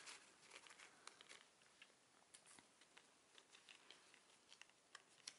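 Near silence with faint rustling and light clicks of kraft-paper gift tags being handled, the sharpest click near the end.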